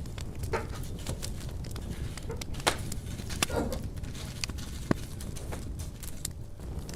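Wood fire crackling in a fireplace: irregular sharp pops and snaps over a low steady rumble of the burning logs, with a few louder pops, one near the middle.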